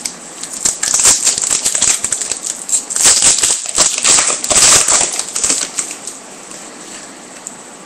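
Foil trading-card pack wrapper being torn open and crinkled, a dense run of crisp crackles that stops about six seconds in.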